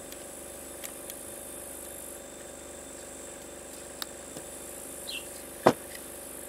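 Light clicks and taps of plastic parts as a Chinese chainsaw's handle housing and trigger linkage are worked apart by hand, with one sharper click shortly before the end. A steady hum runs underneath.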